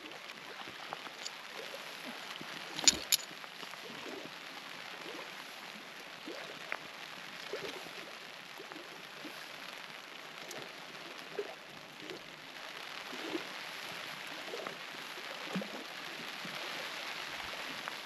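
Steady rain falling, with scattered drops and two sharp clicks close together about three seconds in; the rain grows a little louder over the last few seconds.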